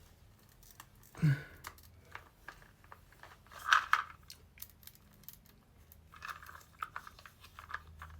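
Handling of a plastic toy figure and toy quad bike as the figure is fitted back onto the bike: scattered small plastic clicks and scrapes, a brief sound falling in pitch about a second in, and a louder rustle near four seconds.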